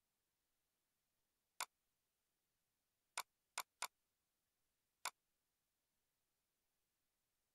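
Five sharp computer-mouse clicks over near silence, two of them in quick succession about three and a half seconds in.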